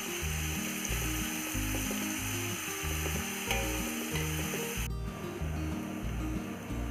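Sliced onions sizzling in hot ghee and oil in an aluminium pot while a steel ladle stirs them, sautéing toward golden brown. Background music with a steady bass beat plays throughout. The sizzle drops off abruptly about five seconds in.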